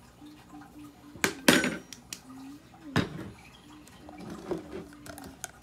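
Kitchen utensils clinking and knocking against a ceramic mixing bowl while sauces are measured in by the tablespoon: a sharp ringing clink about a second and a half in, another knock around three seconds, and lighter taps near the end.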